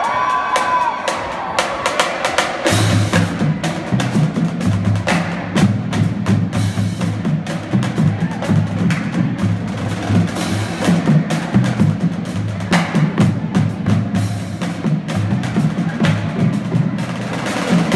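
High school marching drum line playing a cadence: rapid snare and stick clicks, joined about three seconds in by the pitched bass drums in a driving rhythm. A few crowd whoops fade out at the very start.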